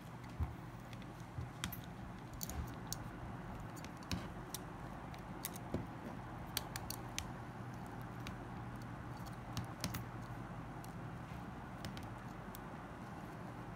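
Scattered light clicks and taps of small phone parts and tools being handled during disassembly of a Samsung Omnia II, coming in short clusters, over a steady low hum.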